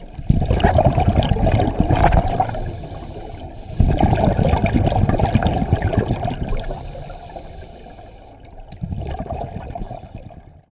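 Scuba diver's exhaled air bubbling and rushing out of the regulator, recorded underwater, in three loud surges a few seconds apart.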